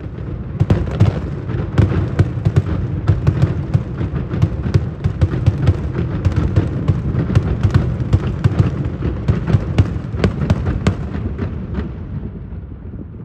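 Daytime aerial fireworks: a rapid, dense string of sharp cracks and bangs over a deep rumble, which dies away about eleven seconds in.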